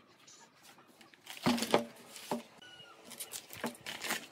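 A few sharp knocks and clatters of wooden workpieces being handled and set down on a wooden workbench, with light rubbing and shuffling between.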